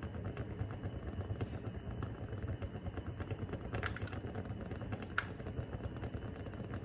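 Beaten egg frying in a hot pan: a steady fine crackle of many small ticks, with two sharper clicks about four and five seconds in.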